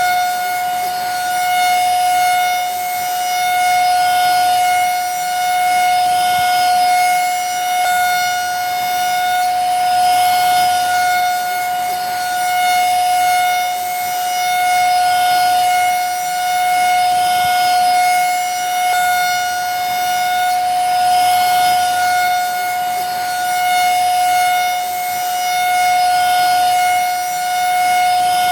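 Vacuum cleaner running steadily: a constant high motor whine over a rushing hiss of air, its loudness gently swelling and easing about every two seconds.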